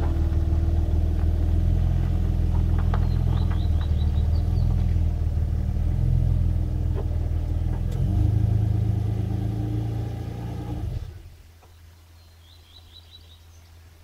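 2001 Nissan Maxima's V6 with the muffler deleted, running at low revs as the car is manoeuvred slowly. It swells briefly about eight seconds in, then the engine is switched off about eleven seconds in and the exhaust note stops.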